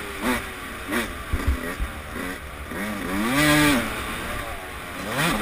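Suzuki RM144 two-stroke motocross engine under riding throttle. Two quick blips near the start, then a longer rev that rises and falls back about three seconds in, and it climbs again at the end. A few dull thumps come between one and two seconds in.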